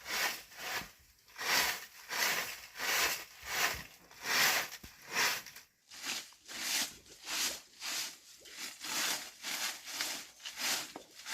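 Rhythmic rasping strokes of manual work, about one and a half a second and a little quicker near the end, typical of a hand saw or a tool scraping through wood or earth.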